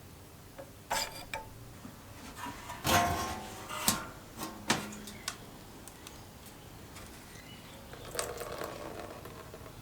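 Scattered knocks and clinks of metal tools and parts being handled on a workbench, a few seconds apart. The loudest comes about three to four seconds in, and there is a softer rustle near the end.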